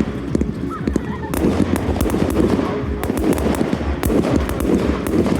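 Fireworks bursting and crackling in rapid succession, many sharp reports overlapping on a continuous rumble.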